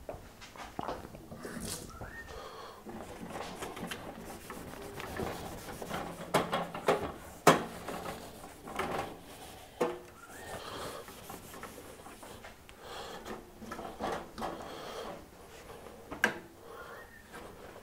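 Polishing cloth rubbing over coffee gear, with a few short squeaks. Scattered clicks and knocks of items being handled; the sharpest click comes about halfway through.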